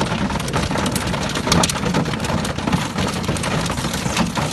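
Heavy hail falling, a dense, continuous patter of many small sharp impacts on vehicles and the ground.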